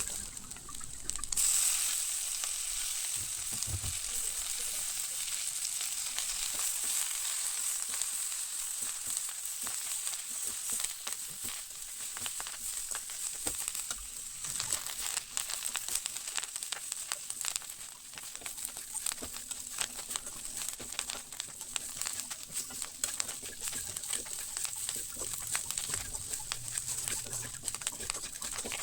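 Food frying in hot oil in a pan, a steady sizzle with dense crackling that starts about a second and a half in.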